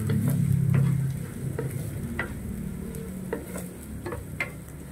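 Sliced ginger, onion and garlic sizzling in oil in a nonstick pan, stirred with a wooden spatula that scrapes and taps the pan several times. The frying is louder for about the first second.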